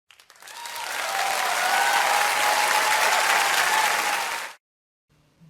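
Crowd applause, a sound effect that swells in over the first second and stops abruptly about four and a half seconds in, marking a correct quiz answer.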